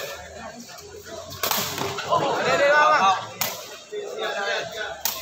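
Sharp smacks of a sepak takraw ball being kicked, a few times about two seconds apart, with loud shouts from voices in between.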